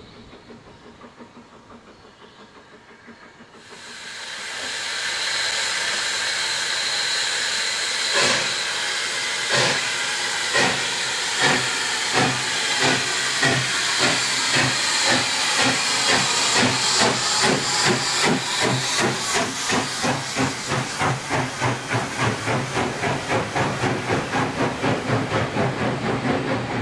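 Coal Tank steam tank locomotive: loud steam hiss starts suddenly about four seconds in. A few seconds later its exhaust beats begin, slow at first and then quickening steadily as it gets its train under way.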